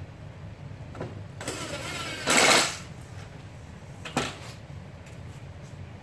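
A cordless power driver runs briefly, driving a screw into a wooden blocking strip, loudest for about half a second just past two seconds in. A few light knocks of wood on wood come before and after.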